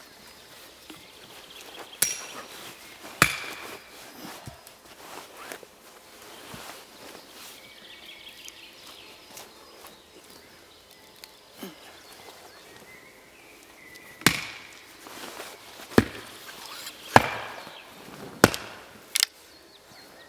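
Sharp blows on wood: two strikes about a second apart near the start, then a run of five strikes in the last six seconds.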